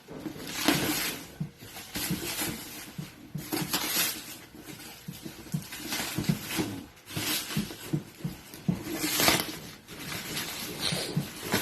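A sneaker package being handled and opened by hand: irregular bursts of rustling and scraping with soft knocks between them.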